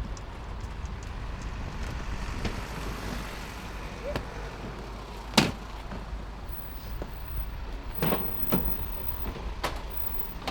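A vehicle's steady low rumble, with several sharp knocks: the loudest is about halfway through, and a few more come near the end.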